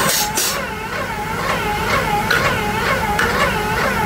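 A steady machine whine in the polyurea spray rig, warbling as its pitch dips and rises about three times a second, with a short hiss near the start.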